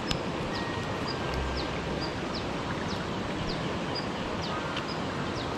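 A bird repeating a short, high chirp about twice a second, in alternating falling and level notes, over a steady rushing hiss. A single sharp click sounds just at the start.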